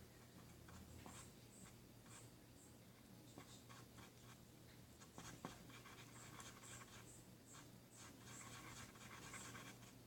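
Faint handling noises: soft scratchy crackles and scattered small clicks over a low steady hum, busiest in the second half.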